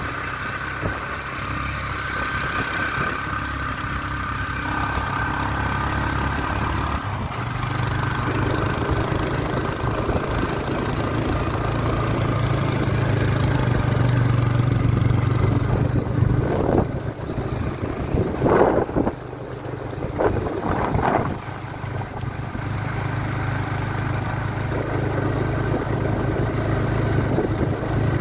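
Vehicle engine running as it drives along a hill road, a steady low hum that rises to a higher note about seven seconds in and then holds. A few short louder noises break in about two-thirds of the way through.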